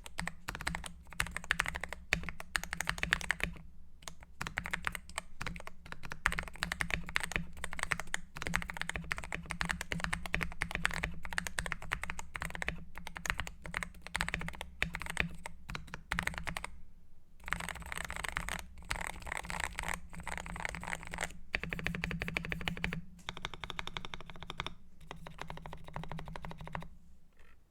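Fast, continuous typing on a GMK67 mechanical keyboard with lubed Gateron Black linear switches, with a few brief pauses, stopping near the end.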